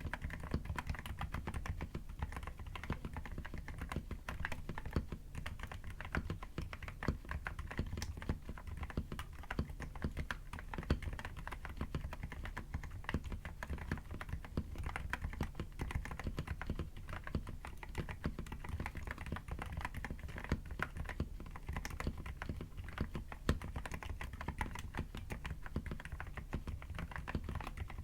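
Continuous fast typing on a mechanical keyboard with Akko Haze Pink silent linear switches, a dense run of soft keystroke clicks.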